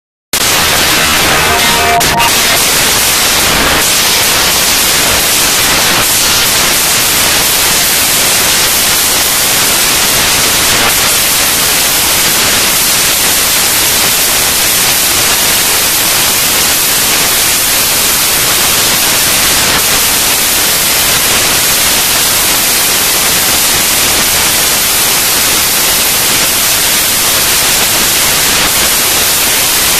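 Loud, steady static hiss like white noise, cutting in abruptly just after the start and holding one even level.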